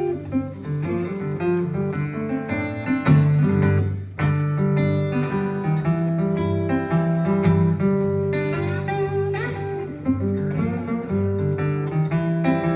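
Acoustic guitar playing a blues instrumental intro, picked and strummed notes over a repeating low bass line.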